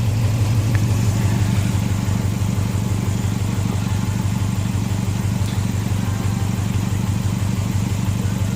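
2002 Subaru WRX's turbocharged flat-four engine idling steadily through its exhaust, with an even low rumble. It runs smoothly at a settled idle after reassembly.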